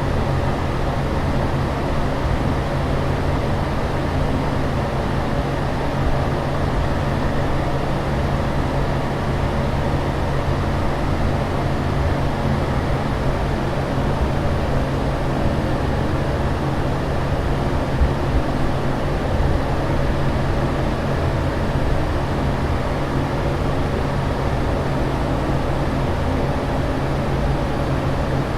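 Steady aircraft cabin drone: an even rumbling hiss with a constant low hum underneath, unchanging throughout.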